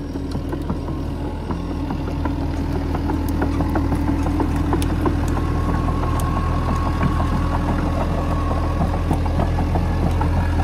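Hitachi 120 hydraulic crawler excavator on the move: its diesel engine runs steadily under load while the steel tracks clank and rattle over brush and ground, growing louder over the first couple of seconds. A thin steady whine rides over the engine for a few seconds midway.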